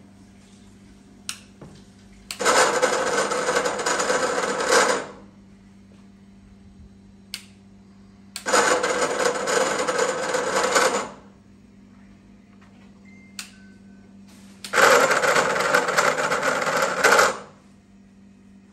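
BubbleWrapCutter BWC100 bubble wrap and foam film cutting machine cycling three times, each a loud motor-driven mechanical run of about two and a half seconds that starts and stops sharply. A steady electrical hum and a few light clicks fill the gaps.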